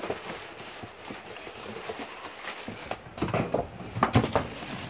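Clear plastic bag crinkling and cardboard box rustling as a large RC buggy wrapped in it is handled in its box, with scattered clicks and knocks. The handling gets louder and busier about three seconds in.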